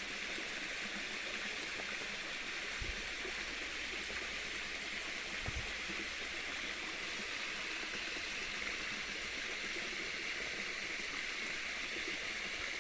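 Small stream running steadily, an even rush of flowing water, with two soft low thumps about three and five and a half seconds in.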